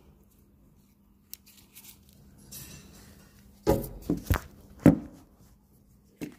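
Handling noise: a few sharp knocks and thumps about three and a half to five seconds in, with one more near the end, as parts and the recording phone are handled.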